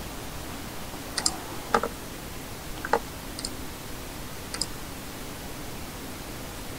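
Scattered computer mouse clicks, about half a dozen at irregular intervals, over a steady background hiss.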